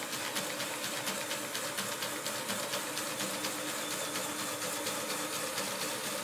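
Lego brick model of a Wankel rotary engine turning on its electric motor: the plastic gears and rotor run with a steady whir and rapid, even clicking.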